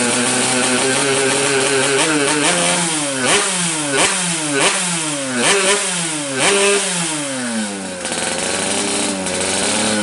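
Yamaha RX-King two-stroke single-cylinder engine idling, then revved in a quick series of about half a dozen throttle blips, each rising and dropping in pitch, before settling back to idle.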